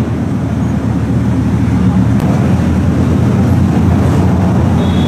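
Lamborghini engine idling steadily with a deep, low hum, the car barely moving.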